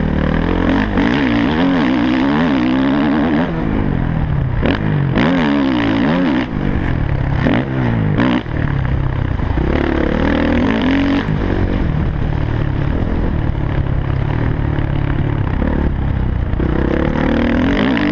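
Motocross bike engine ridden hard, revving up and falling back again and again through the gears and corners. There are a few sharp clacks near the middle.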